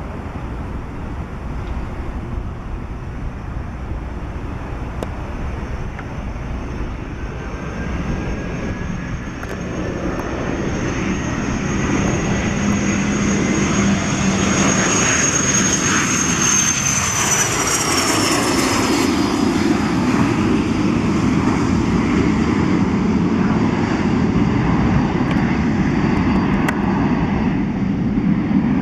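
Cessna Citation CJ1 business jet taking off on its two turbofans. The engine whine and rush build as it accelerates down the runway, and a high whine drops in pitch as the jet passes, about seventeen seconds in. A loud, steady low rumble of the climb-out follows.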